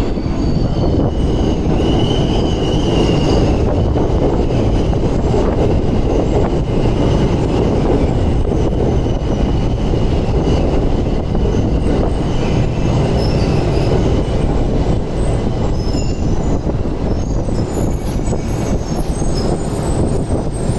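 Tokyo Metro 1000 series subway train pulling into the platform and slowing, its running gear rumbling loudly. A high squeal is strongest about two to four seconds in and dies away after about fourteen seconds.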